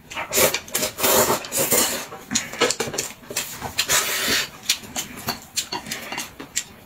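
Noodles being slurped in several hissy sucking bursts, the longest about one to two seconds in and again around four seconds, with chewing and small clicks between.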